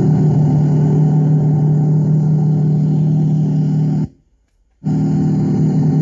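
A heavy engine running steadily with an even, low hum. The sound cuts out completely for under a second about four seconds in, then comes back unchanged.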